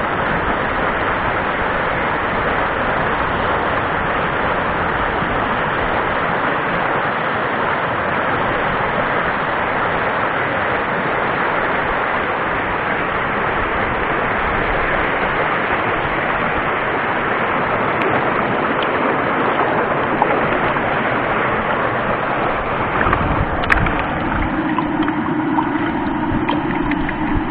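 Whitewater rapids of a rocky mountain stream rushing and churning close by: a loud, steady rush of water. Near the end the rush eases and a few light knocks are heard.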